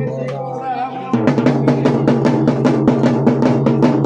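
Music with a steady low droning tone; about a second in, fast, even drumming starts and carries on over it.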